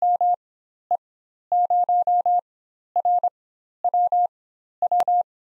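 Morse code sent as a single steady tone, keyed in dots and dashes that spell the call sign 2E0RWW. A single sharp click sounds near the end.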